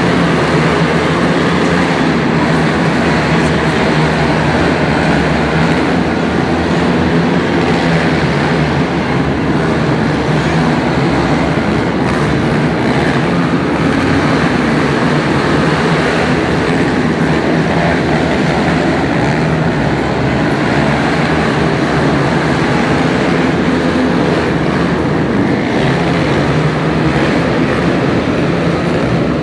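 Engines of several racing quad ATVs running together as one steady, loud din.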